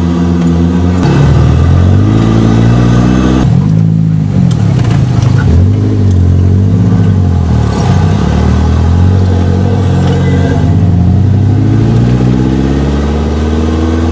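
Modified four-wheel-drive off-road vehicle's engine running, heard from aboard, revving up and dropping back several times so its pitch rises and falls over and over.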